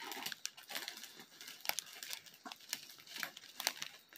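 Faint, irregular crinkling and crackling of thin plastic and paper being handled: a strip of sealed plastic packets of diamond-painting drills turned in the hands while paper is rolled up, which is loud enough to carry.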